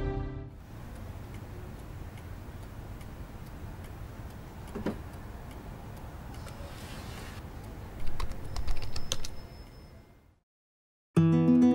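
Keys tapped on a laptop keyboard over a low room hum: a few scattered taps, then a quick run of louder taps about eight seconds in.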